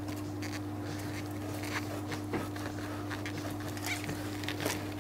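Faint metal clicks and scrapes as a motorcycle exhaust silencer is slid onto its link pipe, over a steady low hum.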